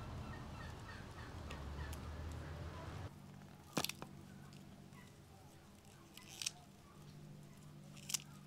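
Fresh herb stems being snapped and picked by hand, three crisp snaps a couple of seconds apart. Faint bird chirps in the first few seconds.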